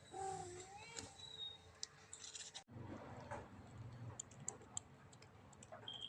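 Kitten mewing once briefly at the start, followed by scattered small clicks and taps.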